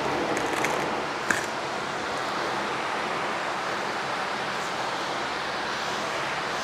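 Steady rush of moving air, with a single light click about a second in.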